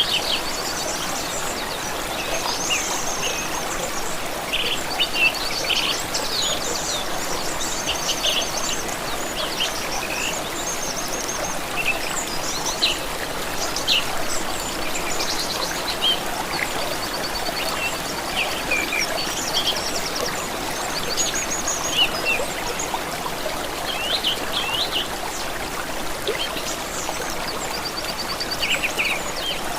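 Flowing water, a steady rushing hiss, with many birds chirping and singing over it in short calls and trills.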